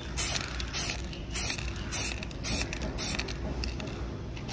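Aerosol spray-paint can spraying black paint in short hissing bursts, about two a second, with a brief pause near the end. This is the first coat going on a welded steel steering-damper bracket.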